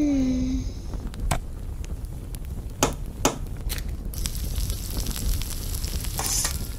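A short falling tone, then a few sharp taps and cracks of an eggshell being broken over a frying pan. From about four seconds in, a steady high sizzle of frying in the hot pan over a gas burner, with a low rumble beneath throughout.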